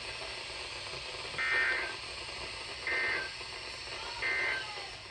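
NOAA Weather Radio EAS (SAME) end-of-message signal: three short, buzzy digital data bursts about a second and a half apart, over steady radio hiss. They mark the end of the warning broadcast.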